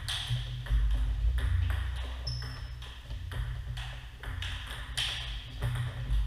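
Table tennis rally: the celluloid ball clicking back and forth off rubber-faced paddles and the table top in a steady series of sharp ticks.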